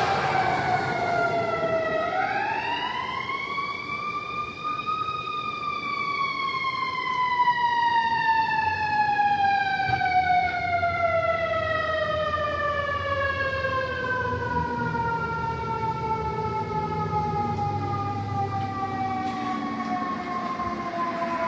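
Fire engine siren wailing in one slow cycle: the pitch dips, climbs over a few seconds to its peak, then winds down slowly and steadily.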